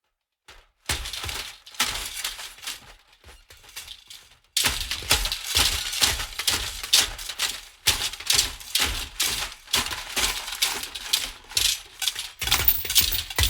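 Loose pieces of metal rattling rhythmically, a dense jangle of clinking strokes. It starts a moment in, eases off briefly, then comes back louder about four and a half seconds in.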